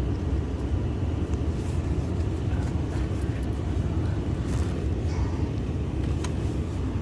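Steady low rumble of a car, heard from inside the cabin, with a few faint clicks and rattles from a seat belt buckle being handled.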